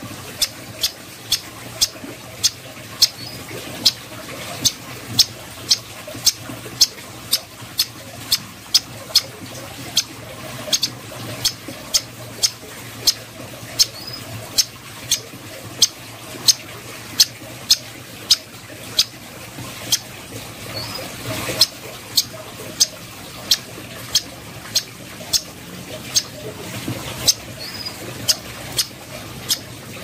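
Striated grassbird (cucak koreng) giving sharp, high, clicking call notes over and over, a little under two a second, with a few short rising chirps mixed in.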